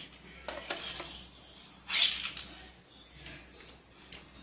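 Light clicks and scrapes of a plastic LED bulb's housing and diffuser cover being handled and fitted together, with one short louder rustle about two seconds in.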